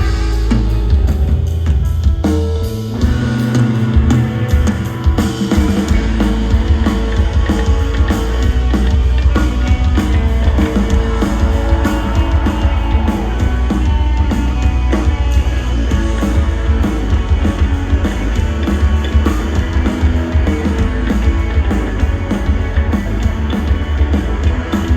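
Live band music without singing: drum kit and guitar over a heavy bass line.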